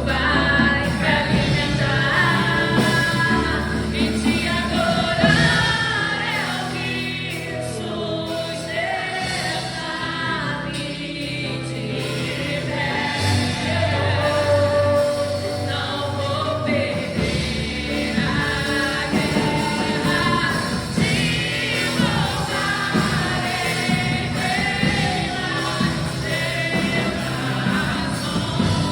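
Live gospel worship music: singers, with choir-like voices, over a band with sustained keyboard and bass notes.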